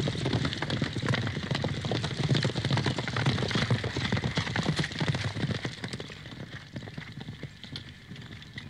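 Hoofbeats of several cavalry horses riding past, a rapid, dense clatter that fades away about six seconds in.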